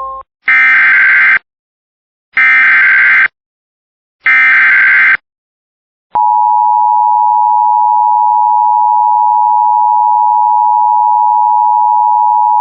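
Emergency Alert System SAME header: three short bursts of buzzing digital data tones, each just under a second long and about two seconds apart. About six seconds in, the steady two-tone EAS attention signal starts and holds, the alarm that comes before a spoken severe thunderstorm warning.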